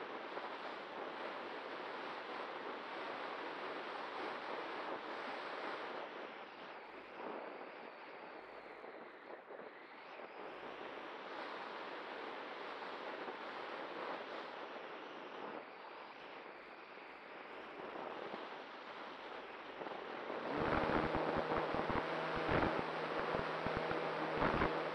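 Wind rushing past a Cularis electric glider's onboard microphone as it glides with the motor off. About twenty seconds in, the electric motor starts and the folding propeller runs with a steady hum over louder, buffeting wind.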